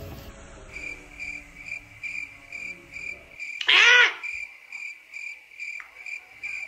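Cricket chirping in a fast, even pulse, used as an inserted sound gag. About four seconds in, a woman's voice cuts through with one short, loud, high-pitched cry.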